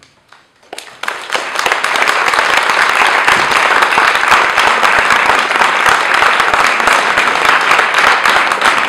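Audience applauding: after a brief hush, many people start clapping about a second in, and the clapping holds loud and steady.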